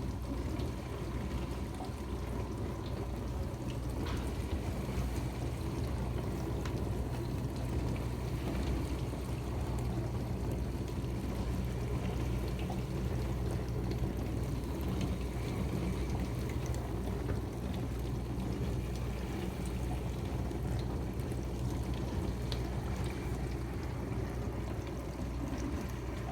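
Dishwasher running: water spraying and sloshing inside the tub over a steady low motor hum.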